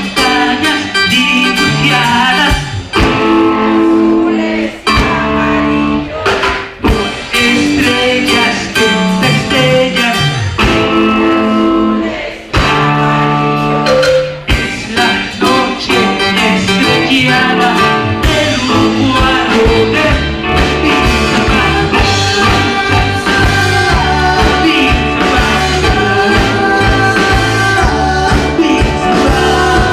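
Live band playing a song over a PA, with electric guitars, keyboard and drum kit and a sung vocal. The low end of the music fills out and turns steadier about two-thirds of the way through.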